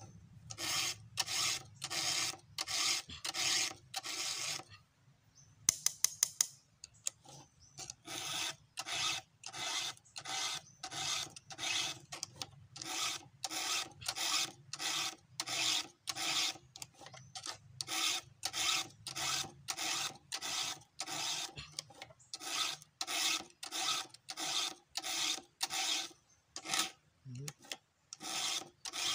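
Round file rasping across the cutters of a chainsaw chain, one stroke about every half second. The strokes break off about five seconds in, a few sharp clicks sound, and then the filing goes on at the same pace.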